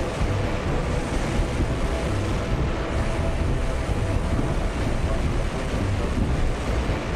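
Jet engines of the Lockheed XV-4 Hummingbird running: a steady, dense rushing roar with faint steady tones underneath.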